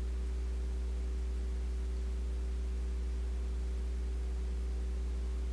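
Steady low electrical hum with a few fainter steady tones above it and a light hiss.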